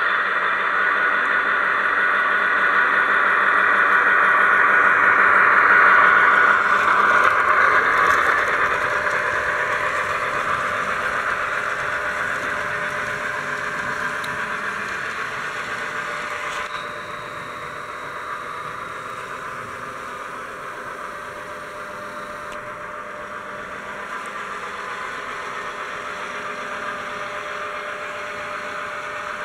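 Model train running on the layout track: an electric motor whine with wheels rolling and rattling over the rails. It is loudest for the first several seconds as the train passes close, then gradually fades as it runs away.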